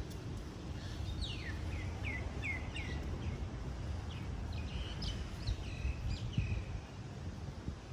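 A songbird calling: a quick run of five or six falling chirps, then a few more chirps with short held notes a couple of seconds later, over a steady low outdoor rumble.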